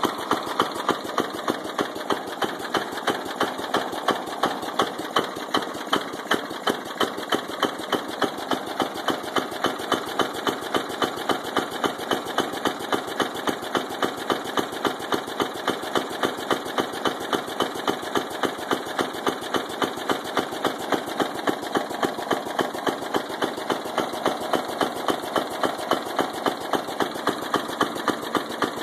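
Briggs & Stratton engine of a 1989 Murray lawn tractor running at a steady speed, with a sharp knock repeating evenly a few times a second: a bad rod knock.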